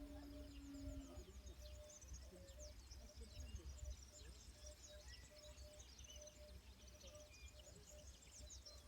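Faint outdoor ambience of small birds chirping, many short high calls, over a low rumble.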